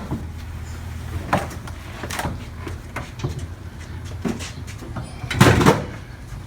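A few scattered knocks and thumps, the loudest and longest about five seconds in, over a low steady hum.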